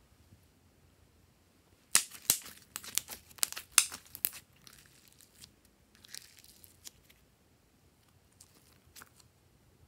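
Glossy glitter slime squeezed and stretched by hand. About two seconds in comes a quick run of sharp wet clicks and pops, followed by a few softer scattered crackles.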